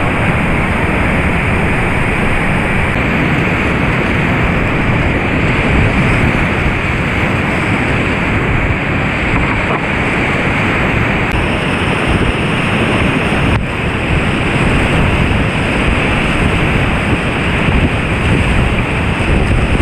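Whitewater rapids of a mountain river rushing loudly over boulders: a steady, dense wash of water noise.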